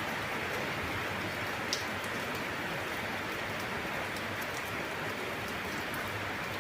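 Steady, even hiss with a single light click about two seconds in.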